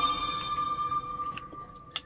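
A bell-like ringing tone fading away over about a second and a half, with a short sharp click near the end.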